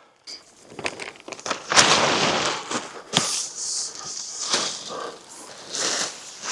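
Waterproof tarp rustling and crackling as it is handled and rigged, with irregular crinkles and a sharp snap about three seconds in.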